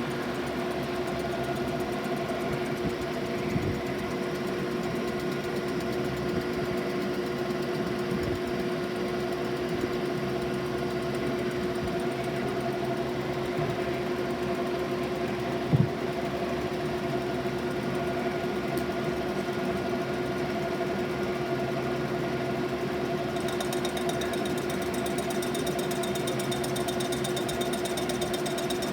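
DeVlieg machine tool running steadily while machining a cast-iron exhaust manifold: a steady mechanical hum of several constant tones, with a sharp knock about 16 seconds in. A faint high whine joins about three-quarters of the way through.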